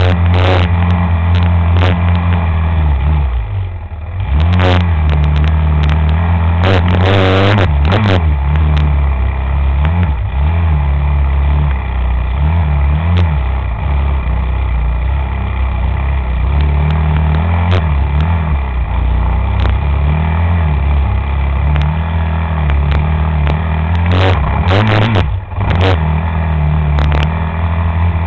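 A motor vehicle's engine running steadily and loud, with brief knocks or rattles about seven seconds in and again a few seconds before the end.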